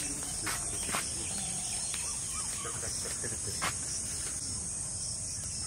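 Steady high-pitched insect chorus, with three brief sharp chirps over it: about half a second in, at one second, and near four seconds.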